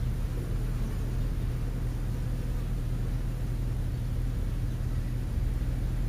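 A steady low rumble with a constant hum running through it.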